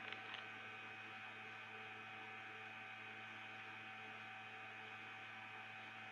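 Steady electrical hum with several constant tones, at a low level, with a couple of faint clicks right at the start.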